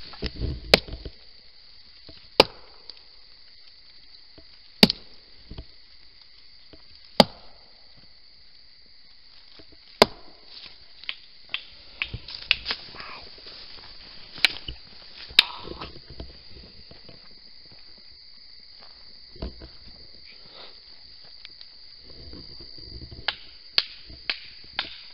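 Sharp knocks, evenly spaced about two and a half seconds apart for the first ten seconds, then coming in irregular clusters, over the steady high drone of night insects.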